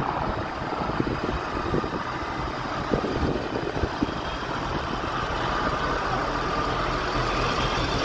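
Forestry fire truck's engine running steadily at idle close by, with a few light knocks.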